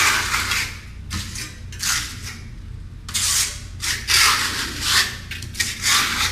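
Steel trowel spreading Redgard liquid waterproofing membrane over cement board: a series of short scraping strokes, about one a second.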